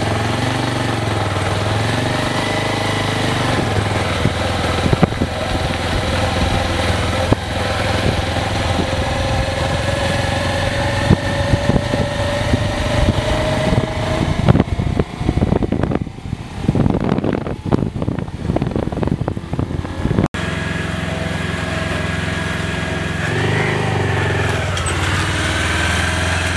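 A vehicle engine running steadily, its pitch slowly rising over several seconds. For a few seconds past the middle it gives way to a burst of rattling and knocking, then the steady engine sound returns after an abrupt cut.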